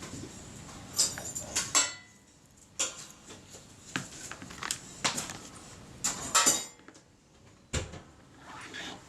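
Light clinks and taps of small metal tools and camera parts being handled and set down on a workbench, several sharp ticks with a brief ring, the loudest cluster a second or so in and again around six seconds in.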